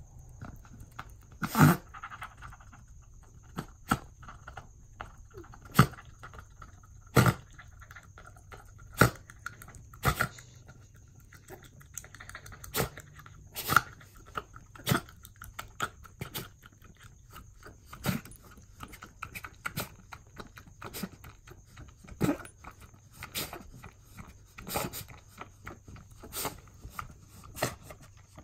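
Maltese mix dog in a grand mal epileptic seizure, its jaws snapping shut in sharp, irregular clacks about every one to two seconds.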